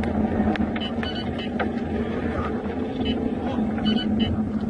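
Steady engine and road noise heard from inside a car driving at highway speed, with a few short high pips and light clicks over it.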